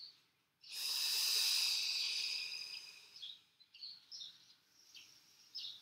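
A long breathy hiss, high in pitch, that fades out over about two and a half seconds, followed by a few faint, short bird chirps.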